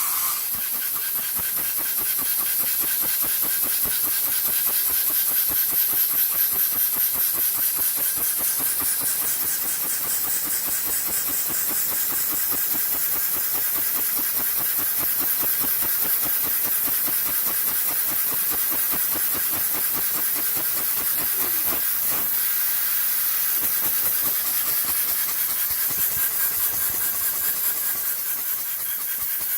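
Machine tool cutting metal: a steady high hiss with a fine, rapid pulsing.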